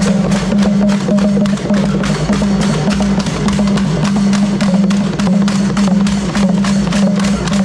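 Traditional hand drums beaten with the palms in a fast, steady rhythm, with a pulsing low drum tone. Sharp wooden clacks, like bamboo clappers, keep the beat over it.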